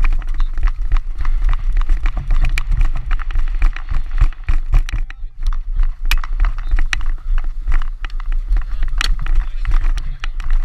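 Wind buffeting a helmet-mounted microphone in a steady low rumble, with irregular thuds and rattles from a lacrosse player running on grass with stick and pads.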